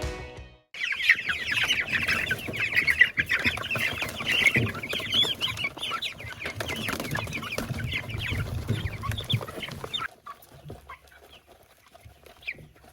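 A crowd of young Cornish cross meat chicks peeping, many short falling chirps overlapping densely. About ten seconds in, the sound drops to a much quieter scene with only a few scattered chirps.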